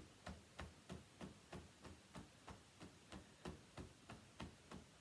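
Fingertips tapping lightly on the upper belly below the ribs in Do-In self-massage percussion: faint, even taps, about three a second.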